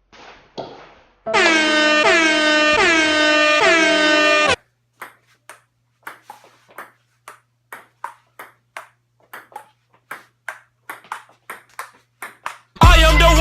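Table-tennis ball clicking sharply and irregularly off paddles and table in a rally, about two to three hits a second. Before it comes a loud run of five or six repeated horn-like blasts, and loud music cuts in near the end.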